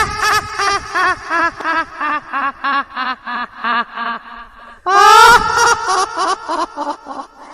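A high-pitched cackling laugh: a rapid run of 'ha' pulses that falls in pitch and trails off, then starts again about five seconds in.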